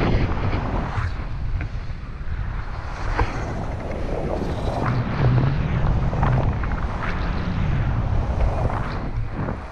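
Airflow buffeting a pole-mounted camera's microphone during a paraglider flight. It makes a loud, low rush of wind noise that swells and eases in uneven gusts.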